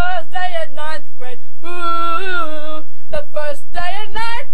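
A girl singing an improvised song unaccompanied, in short phrases with one long held note about two seconds in.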